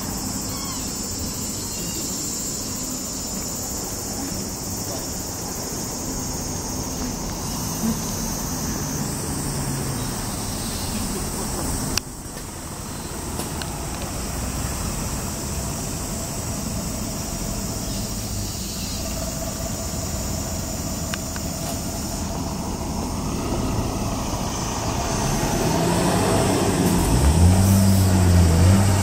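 Street traffic noise with cars going by; near the end a car passes close, its engine rising in loudness and bending in pitch as it goes past.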